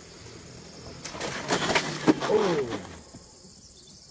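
Motor scooter crashing onto the asphalt road: about a second of scraping and clattering with a sharp bang about two seconds in. A short cry falling in pitch comes right after the bang.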